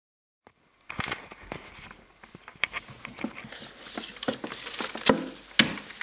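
Handling noise picked up by a Nikon D3200's built-in microphone: irregular rustling, clicks and knocks as the camera is moved about, starting about a second in, with two sharper knocks near the end.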